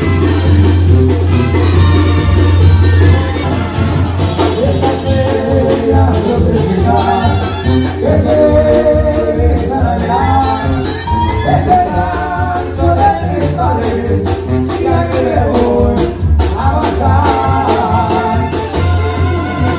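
Live Mexican banda music played loud by a brass band, a tuba carrying the bass line, with singing over it.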